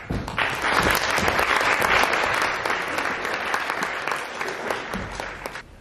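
Audience applauding: a dense patter of handclaps that fades out near the end.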